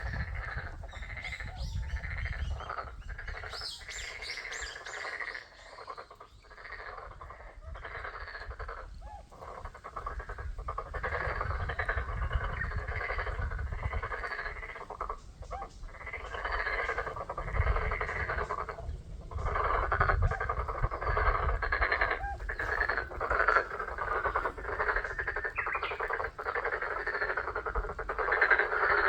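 A wetland chorus of many frogs calling at once: dense, overlapping croaking that swells louder about halfway through, with a low rumble underneath.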